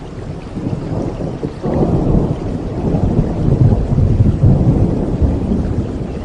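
Steady rain with a long roll of thunder that builds up sharply about a second and a half in and carries on for several seconds.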